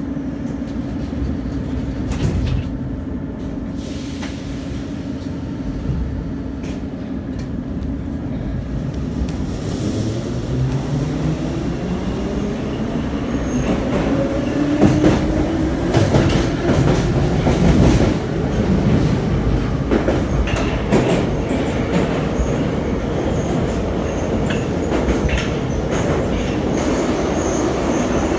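Em-series (81-501/502/503) metro train heard from inside the car as it pulls away from a station: a steady hum at first, then from about ten seconds in a rising whine from the traction motors as it accelerates, with clicks of the wheels over rail joints.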